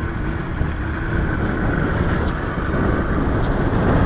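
Motorboat under way: the Mercury outboard runs steadily with wind buffeting the microphone and the wake rushing behind. It grows a little louder near the end.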